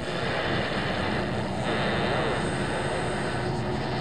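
Steady drone of a semi truck's engine and tyre noise, heard inside the cab.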